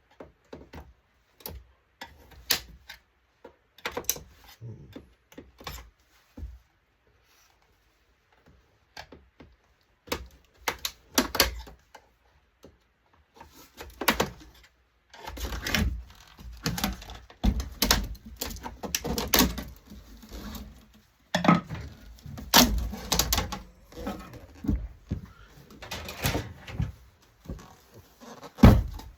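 Irregular clicks, knocks and clatter of parts of an LCD touchscreen monitor being handled and taken apart by hand, sparse at first and busier from about halfway through.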